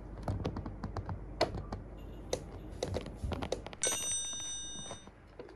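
Irregular sharp clicks and taps right at the microphone: a cat biting and chewing on the camera. About four seconds in, a bright ringing tone with several high pitches sounds for about a second.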